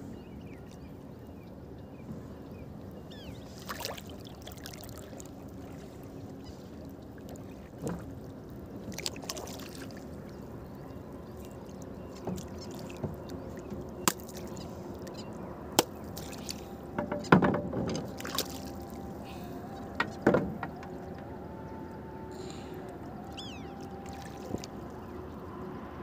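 Sharp knocks, clicks and splashes at a wooden fishing boat as a hooked fish is worked in on a hand line over the side, the loudest cluster about two-thirds of the way through. Underneath runs a steady low hum, with a few short high chirps.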